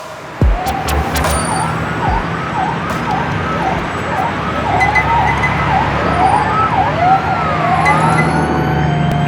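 Several overlapping siren-like wails rising and falling over a steady rushing rumble, after a deep bass hit about half a second in.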